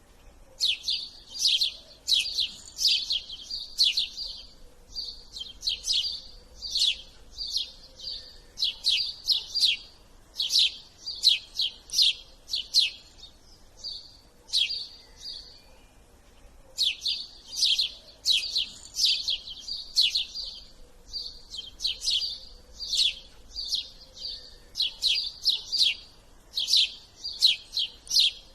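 Small birds chirping: quick runs of short, high, downward-sweeping chirps, repeated over and over with brief pauses.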